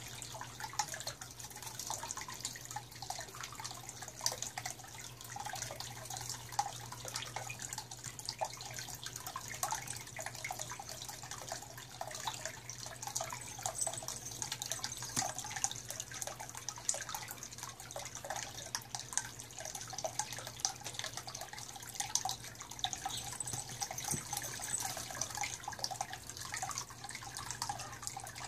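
Small stacked-rock garden fountain: water trickling and splashing steadily, with a constant patter of drips over a steady low hum.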